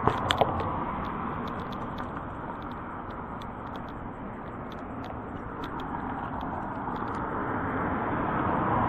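Street traffic: the steady noise of cars going by, swelling as a car approaches near the end. Two sharp clicks right at the start.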